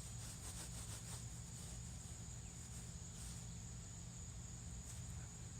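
Crickets chirring in a steady, high-pitched drone, with a few faint rustles in the first second.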